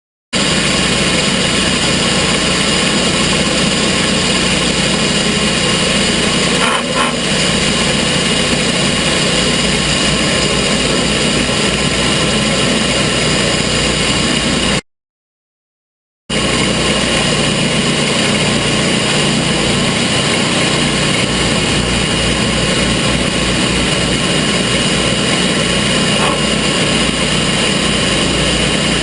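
Gasoline engine of a TimberKing portable sawmill running at a steady speed. The sound cuts out abruptly for about a second and a half near the middle, then resumes unchanged.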